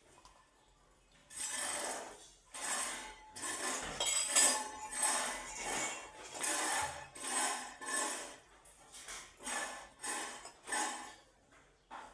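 Repeated scraping strokes, about a dozen, each under a second long, beginning about a second in.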